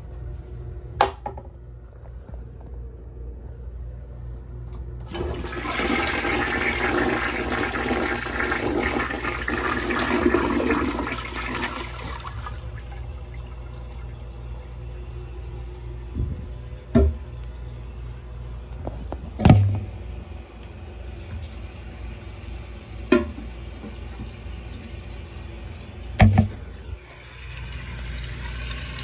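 A 2000 Western Pottery High Boy 1.6-gallon-per-flush toilet flushing: water rushes in suddenly about five seconds in and runs loudly for about seven seconds, then eases into a quieter steady hiss of refilling. A few sharp knocks come in the second half.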